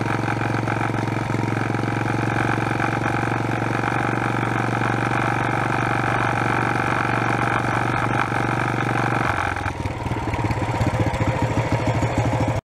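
Predator 212 single-cylinder four-stroke engine of a homemade mini chopper running steadily while the bike is ridden. About three quarters of the way through the engine drops to a lower, pulsing note as the throttle is eased off toward idle.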